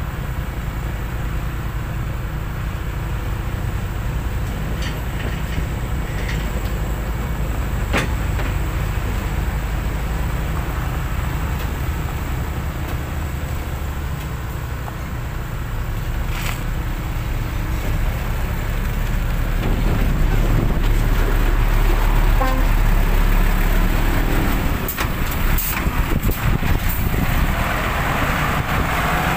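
Heavy diesel truck engines running as trucks drive past on the road. The low rumble grows louder about two-thirds of the way through as one comes close.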